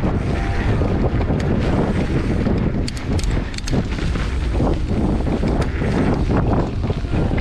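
Wind buffeting an action-camera microphone as a mountain bike rides at speed down a dirt jump line, with tyres rolling over the dirt. A cluster of sharp clicks and rattles from the bike comes about three seconds in.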